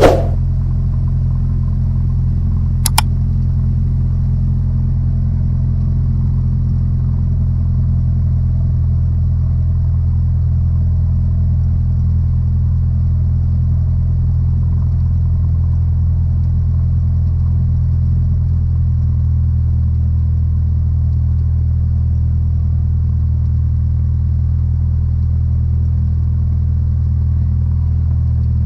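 Cessna 172 Skyhawk's four-cylinder piston engine running steadily at low taxi power, a constant low drone heard from inside the cabin. A single sharp click sounds about three seconds in.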